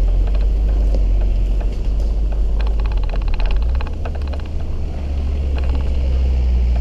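Off-road SUV driving over a rough forest dirt track, heard from an exterior camera by the wheel: a steady low rumble of wind buffeting and tyre noise, with scattered clicks and rattles from stones and the suspension. The rumble shifts slightly about halfway through.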